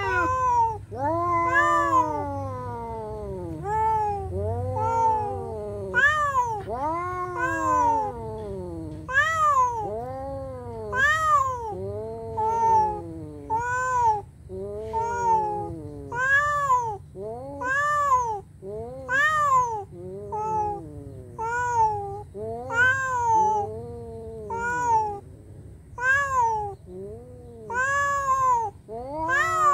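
Domestic cats yowling in a face-off: long calls about once a second, each rising and then falling in pitch, the warning yowls of a standoff between two cats.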